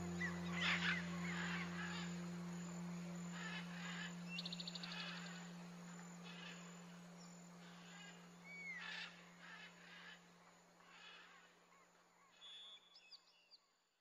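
Birds chirping, with a short fast trill about four seconds in and whistled slurs later, over a low held music note that slowly fades away. Everything dies out near the end.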